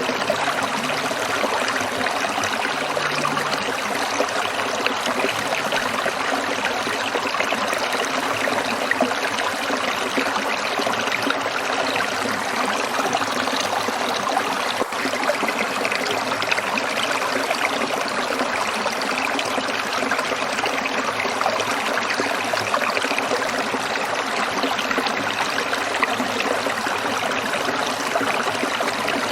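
Water trickling in a stream, a steady, even rush of running water.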